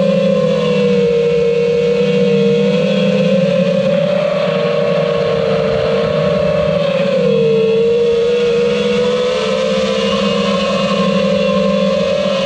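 Five-inch FPV quadcopter's electric motors and propellers whining steadily in cruise, the pitch wavering gently with throttle and dipping noticeably about seven to eight seconds in.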